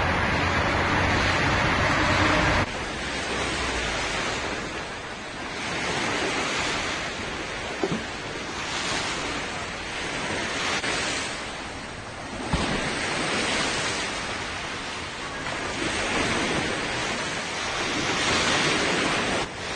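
Sea waves washing in surges every two or three seconds, with wind buffeting the microphone. A low engine hum runs for the first two or three seconds and cuts off suddenly, and two short knocks come later on.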